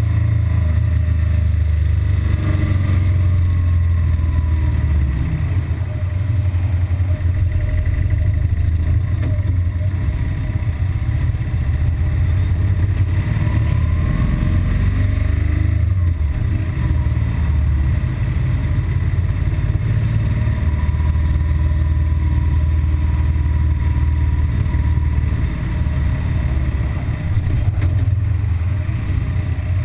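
BMW R1200GS Adventure boxer-twin engine running under way, its note rising and falling with the throttle. The engine is running normally here, before its intermittent rough-idle and stalling fault shows up.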